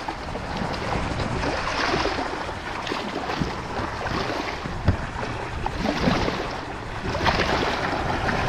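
Shallow surf water sloshing and splashing around a wading person's legs, swelling and easing with each small wave, with wind buffeting the microphone. A single sharp click about five seconds in.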